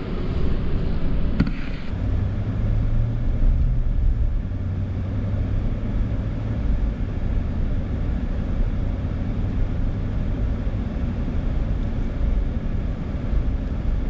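Road and engine noise inside a moving vehicle's cabin: a steady low rumble with a low engine hum. A brighter wind hiss in the first two seconds drops away.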